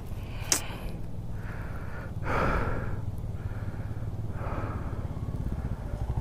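Royal Enfield Himalayan 411's single-cylinder engine idling low and evenly, with a rider's heavy breaths close to the microphone, the loudest about two seconds in, and a short click about half a second in.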